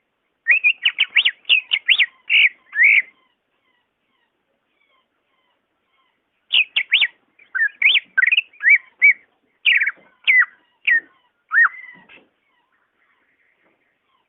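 A leafbird (cucak ijo) singing: a fast run of clear whistled notes for about two and a half seconds, then a pause, then a longer, more varied phrase of sweeping and slurred whistles for about six seconds.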